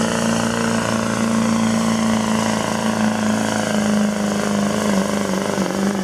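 Pulling tractor's engine running steadily, its pitch holding level and wavering slightly near the end.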